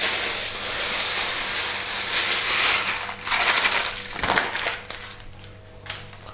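Salt pouring out of its bag onto a baking tray lined with baking paper, a dense steady hiss that eases briefly about three seconds in, surges again, then dies away about five seconds in.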